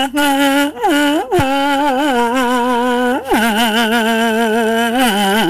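Plastic kazoo hummed through, playing a slow ballad melody: long held buzzing notes with a wobble, a few quick slides up and down about a second in, then a drop to a lower held note about three seconds in.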